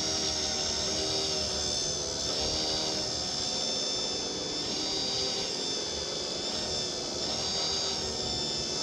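Small wood lathe running steadily with a constant motor whine, spinning pen blanks on a mandrel while a first coat of friction polish is applied with a tissue.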